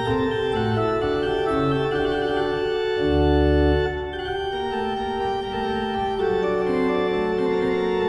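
Choir organ playing a slow, sustained piece: held chords over a bass line that moves from note to note, with a deep low note sounding loudest about three seconds in.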